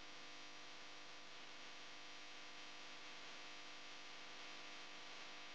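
Faint steady hiss with a low hum: room tone, with no distinct tool sounds.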